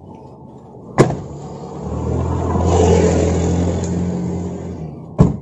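Car doors slamming shut twice, about a second in and near the end. Between the slams a car engine's low hum swells up and dies away.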